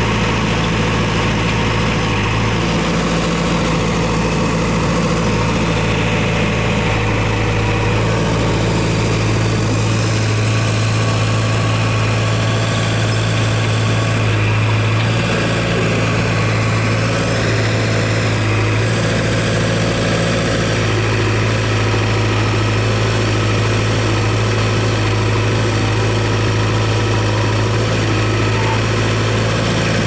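JCB 3DX backhoe loader's diesel engine running steadily at close range, a loud, even low hum whose note shifts slightly now and then as the machine works.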